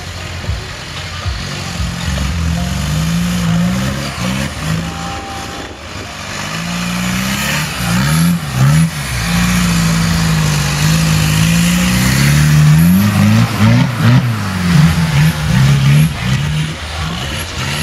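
A modified Suzuki Samurai off-road special's engine revving up and down again and again under load as it crawls up a steep dirt climb. The revs get louder and come in quicker bursts in the second half.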